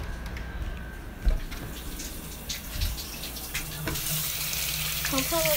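Bathroom sink tap turned on, water running steadily into the basin from about four seconds in. Before that, a few light knocks and handling noises, the loudest about a second in.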